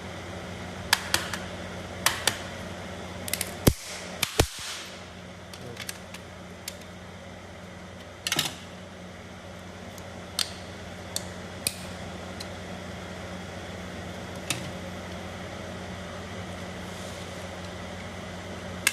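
Scattered sharp clicks and knocks from handling at the welding bench, a pair of louder knocks about four seconds in, over a steady low electrical hum.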